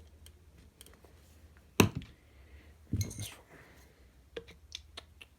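Metal tools clinking against lawnmower engine parts during hand repair work. There is a sharp clank a little under two seconds in, a short rattle about three seconds in, then a few lighter clicks.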